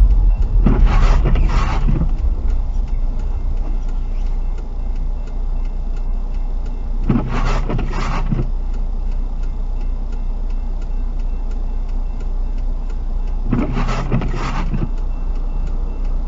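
Low engine and road rumble inside a car cabin, easing as the car slows to a stop. Three paired swishes come about six and a half seconds apart: the windshield wipers on an intermittent setting, sweeping across the glass and back.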